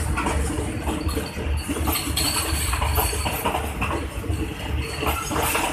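Passenger coaches rolling past at low speed as the train pulls into the station, their wheels clacking and clanking over the rail joints.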